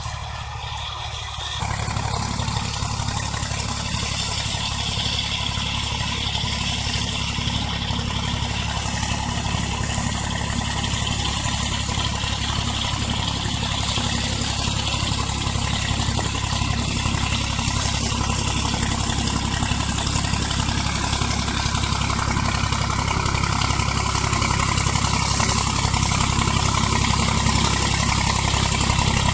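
IMT 549 DV tractor's diesel engine running steadily as it mows tall grass with a Vicon 165 rotary mower. It gets louder about a second and a half in, then keeps building slowly as the tractor approaches.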